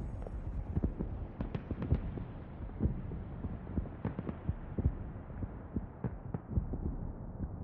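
Irregular muffled thumps and crackles over a low rumble, growing duller toward the end.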